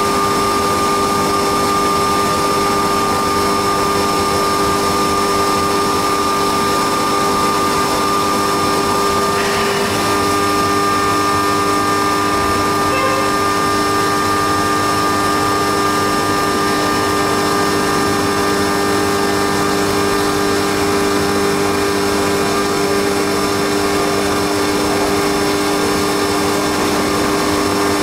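Haas CNC milling machine running steadily while milling a cam on its fourth-axis rotary indexer: a constant machine whine made of several steady tones over a noisy hiss, with a second, lower tone joining about ten seconds in.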